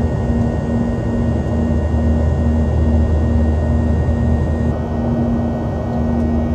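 Steady low rumble of a Boeing 737-800 cabin in flight, engine and airflow noise. A low note pulses about twice a second over it.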